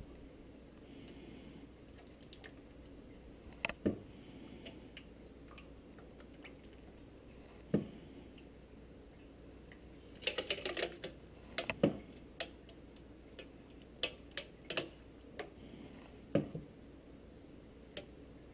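Plastic ladle clicking and tapping against a stainless-steel mixing bowl and tin llanera molds while custard mixture is scooped and poured. The taps are scattered and irregular, with a quick flurry of them about ten seconds in.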